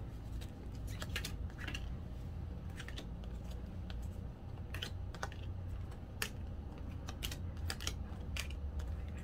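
Stiff photo cards being handled, shuffled and laid down in piles on a table: scattered light clicks and taps of card on card and card on tabletop.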